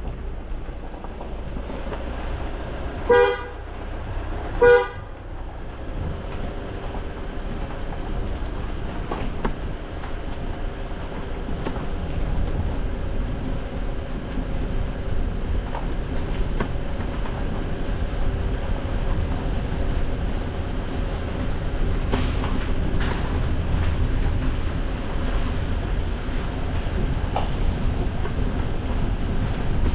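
Two short car-horn toots about a second and a half apart. After them an off-road vehicle's engine and tyres run steadily over the rough floor of a tunnel.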